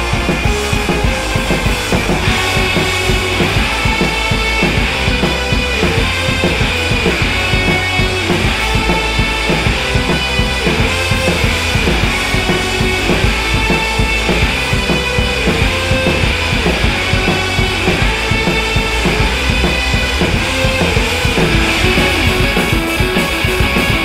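Rock background music with drums and electric guitar over a steady, fast beat.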